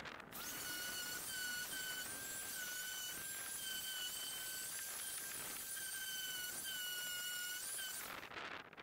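Random orbital sander running against a wooden bowl, played back at eight times speed, so its motor sound becomes a high, steady whine that wavers slightly in pitch. It cuts off about eight seconds in.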